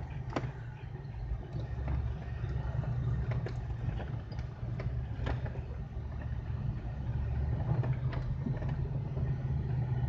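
Jeep engine running steadily at low trail speed, heard from inside the cab, with scattered knocks and rattles as the Jeep rolls over the rough dirt trail.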